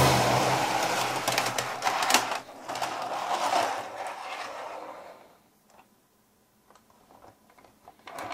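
A small machine whirring and clattering for about five seconds, then stopping, leaving only a few faint clicks.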